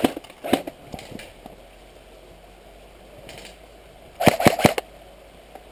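Airsoft electric rifles firing single shots: two shots in the first second or so, then a quick run of about four shots about four seconds in.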